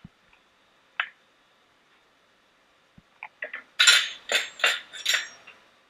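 Dishes clinking: a single light clink about a second in, then a quick run of sharp clinks and knocks, loudest about four to five seconds in.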